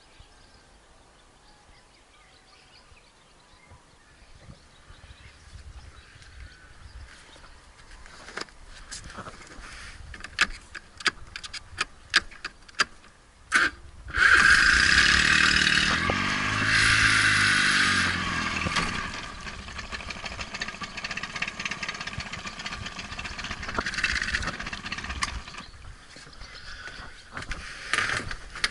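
Yamaha 15 hp outboard motor starting suddenly about halfway through, after some knocking and clattering in the boat. It runs loudly for a few seconds with its pitch rising and falling, then goes on at a lower level.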